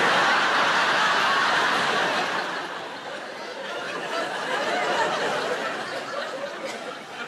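A large theatre audience laughing together, loud at first, easing off about halfway through, then swelling again before tapering away.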